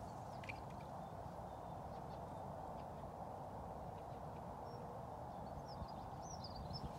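Steady rush of a flowing river, with a few brief high bird chirps and a couple of soft low knocks near the end.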